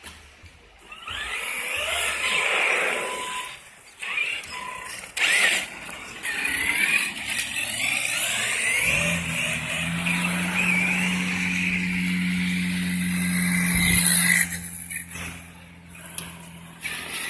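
Brushless electric RC trucks running on wet pavement, their motors whining up and down in bursts of throttle. A steady low hum joins from about nine seconds in until about fourteen and a half.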